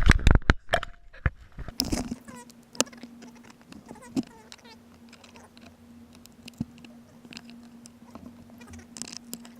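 Small clicks, taps and knocks of a tool and fingers working at an iPad 2's ribbon-cable connector, louder knocks at the start and around two seconds in, then scattered light ticks. A steady low hum runs under it from about two seconds in.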